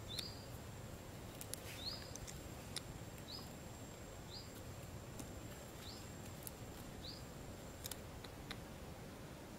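A small bird's short, high rising chirp, repeated about six or seven times at intervals of roughly a second, over low outdoor background noise with a few faint handling clicks.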